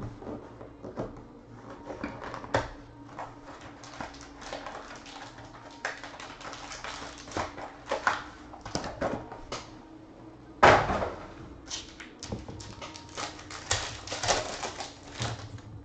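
Foil trading-card pack crinkling and tearing open, with scattered clicks and rustles of cards and packaging being handled. One louder crackle comes about two-thirds of the way through.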